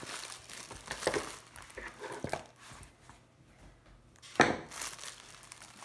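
Stiff glossy plastic cover film on a rolled diamond painting canvas crinkling as it is unrolled and smoothed flat by hand, with one sharp, loud crackle a little over four seconds in.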